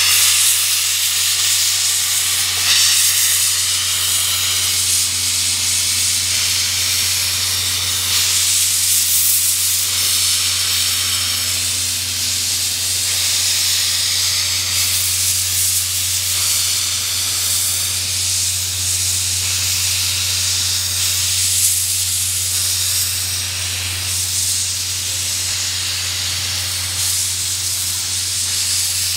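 C56 steam locomotive letting off steam in a loud, continuous hiss that swells and eases, over a steady low hum.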